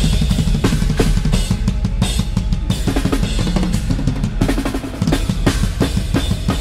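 Metal drum kit played hard and fast: a dense stream of bass drum strokes under snare hits and Zildjian cymbal crashes.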